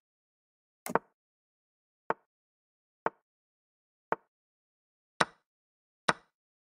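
Chess-program move sound effect: a short, sharp click for each piece moved on the board, about one a second, six in all. The one about a second in and the last two are louder and fuller than the rest.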